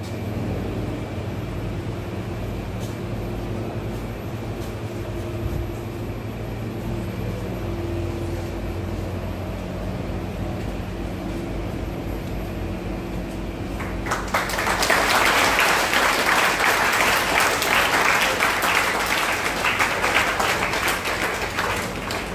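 Steady low hum in a hall, then an audience applauding, starting about two-thirds of the way through and lasting several seconds before dying away near the end.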